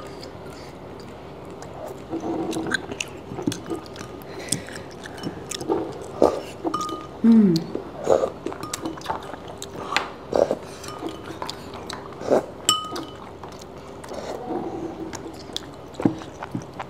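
Tableware clinking and tapping: spoons and chopsticks knocking against ceramic bowls and a clay pot in scattered small clicks, a few with a short ring, with chewing between them.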